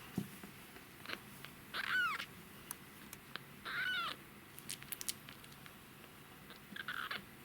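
Young kitten mewing three times, short high-pitched cries a couple of seconds apart, with a few faint clicks between them.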